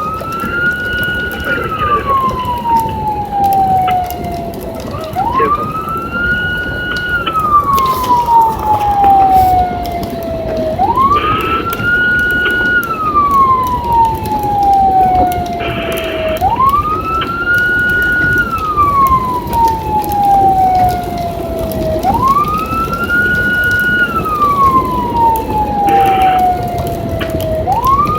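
Emergency vehicle siren on a wail cycle: each cycle rises quickly, holds briefly at the top, then falls slowly over about four seconds before rising again, five times in all. Steady road noise runs underneath.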